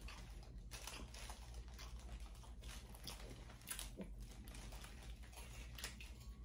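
Faint eating sounds: quiet chewing and scattered small clicks and taps from handling crab legs and a spoon, over a low steady hum.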